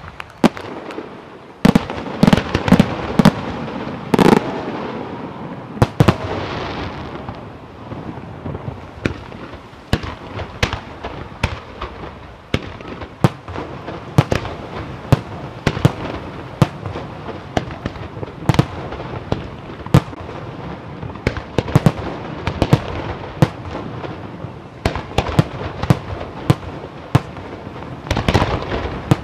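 Aerial firework shells bursting in a long irregular string of sharp bangs over a continuous wash of sound, densest in the first few seconds and again near the end.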